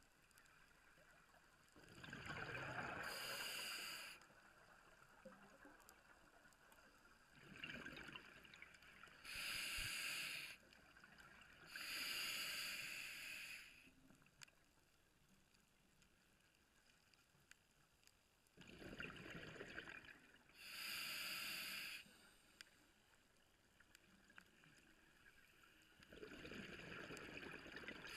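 Scuba diver breathing through a regulator underwater: each breath is a drawn-in hiss followed by a short burst of exhaled bubbles. About four breaths come several seconds apart, with faint water hiss between.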